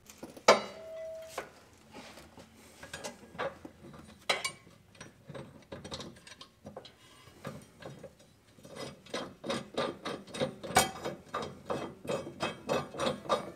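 Hand wrench working a mower blade bolt under the deck: scattered metallic clicks and knocks, settling about two-thirds of the way in into steady rapid clicking, roughly three a second. A single ringing metal clank sounds near the start.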